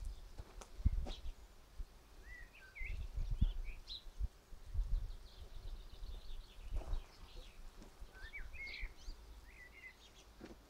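Small birds chirping in two short bursts of quick notes, with low knocks and rumbles on the microphone.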